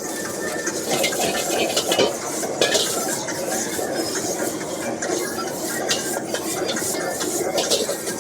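Stir-frying in a wok: a metal spatula scraping and clanking against the pan in quick, irregular strokes over a steady background hiss.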